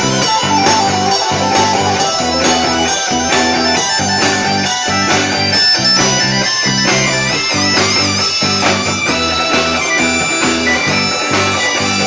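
Live band playing amplified electric guitar over a drum kit with a steady beat, loud and continuous, with no singing.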